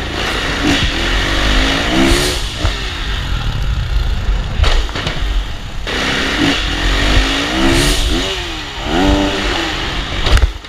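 Four-stroke Kawasaki KX450 dirt bike engine under hard throttle, accelerating. Its pitch climbs in two runs, about a second in and again around six seconds in.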